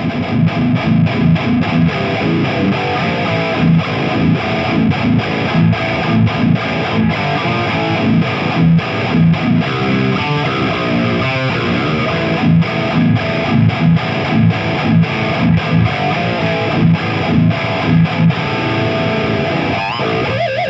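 Heavily distorted electric guitar playing a rhythmic riff of low, chugging notes, through a Mooer micro preamp pedal and a Harley Benton GPA-100 solid-state power amp into a Marshall speaker cabinet.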